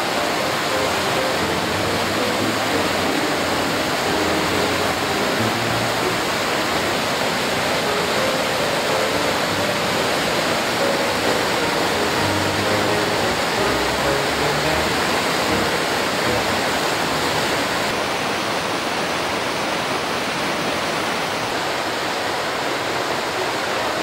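Whitewater rushing and splashing over rocks in a river cascade: a loud, steady, unbroken noise of falling water.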